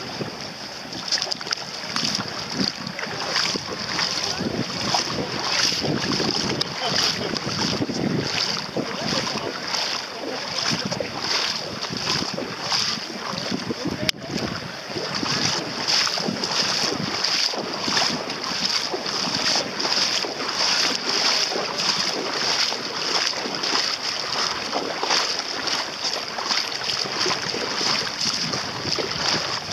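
Wind buffeting the microphone above shallow sea water, with a high hiss pulsing about twice a second.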